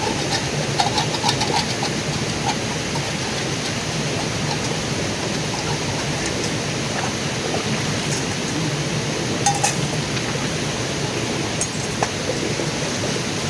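Steady rush of flowing river water, with a few light clinks scattered through it, bunched near the start and twice more late on.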